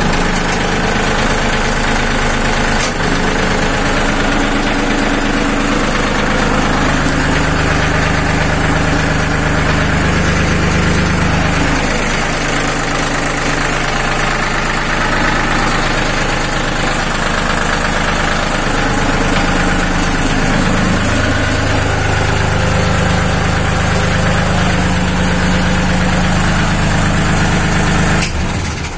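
Three-cylinder Lister Petter diesel engine running steadily on a test run. Near the end the sound drops away quickly as the engine is shut down from the control panel.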